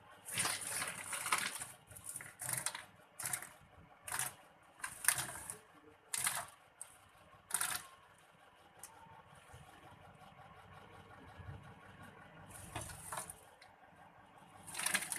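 Short, irregular scuffling and crunching noises, about one a second for the first eight seconds and then twice more near the end, as a monitor lizard bites and works at a small bird while eating it.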